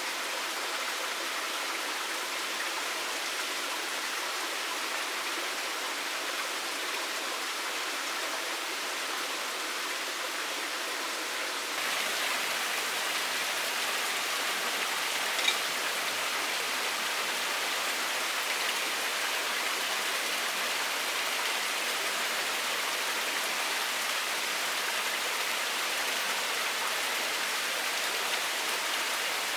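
Steady rush of running water, a forest stream, even and unbroken. It gets slightly louder about twelve seconds in, with a single faint click a few seconds later.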